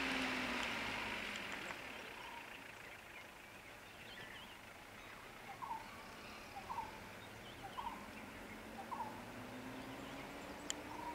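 A bird calling four times in short, evenly spaced notes about a second apart, over a faint vehicle engine hum that fades away in the first second or two and returns near the end.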